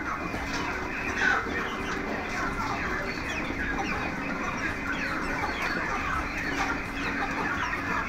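A flock of white broiler chickens clucking and calling, many short calls overlapping without a break.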